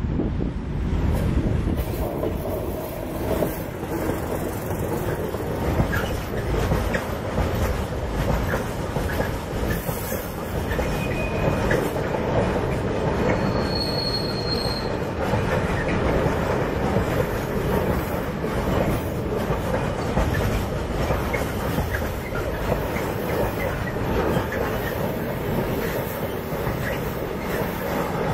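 An FS D345 diesel-electric locomotive passing close by with its engine running, followed by a long freight train rolling past, wagon wheels clattering over the rails. A couple of brief high wheel squeals come partway through.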